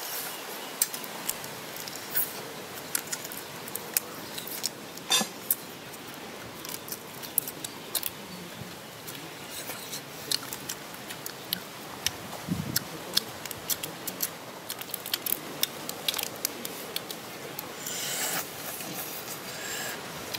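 Large cooked shrimp being eaten by hand: irregular sharp cracks and crunches as the shells are broken apart and peeled, with chewing and mouth sounds.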